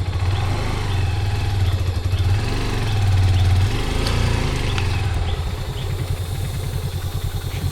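Small motorcycle engine idling steadily with a low, pulsing note.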